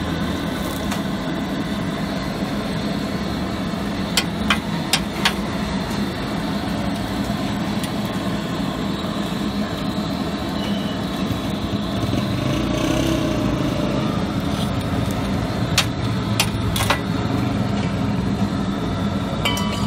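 Metal spatula and tongs clacking against a flat steel griddle a few times, in two short clusters, over a steady din of street noise and a low hum.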